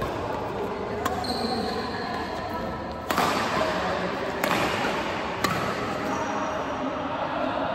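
Badminton rackets striking a shuttlecock in a doubles rally: four sharp hits in about five seconds, ringing in a large hall, with a brief high squeak just after the first hit.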